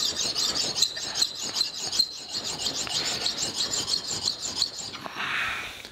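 Metal handle being rubbed back and forth on a flat sharpening stone in quick, even strokes, stoning dings and burrs flat on a surface that must seat against another part. The strokes stop about five seconds in.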